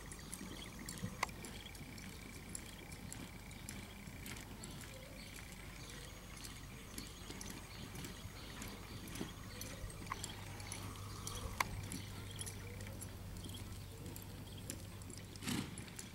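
Horse loping on soft arena dirt under a rider, its hoofbeats soft and scattered, with a couple of sharper clicks and a faint steady low hum.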